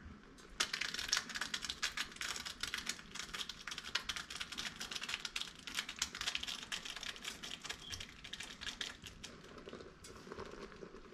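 Silicone spatula stirring a thick, grainy mix of wet granulated sugar in a stainless steel pot: a fast, gritty scraping and clicking of sugar grains against the metal. It starts about half a second in and eases off a little near the end.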